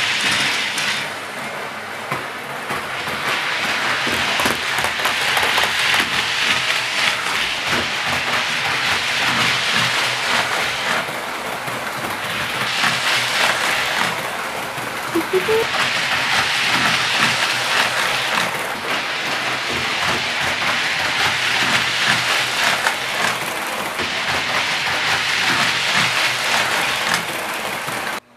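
Hornby model train running around a layout: the whir of its small motor and the clatter of wheels over the track, swelling and fading every few seconds as it passes close and moves away. It cuts off suddenly at the end.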